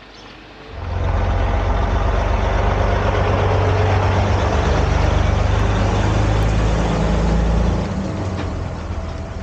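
Heavy diesel truck engine running hard, a deep, loud rumble that comes in suddenly about a second in, holds steady, and drops away near the end.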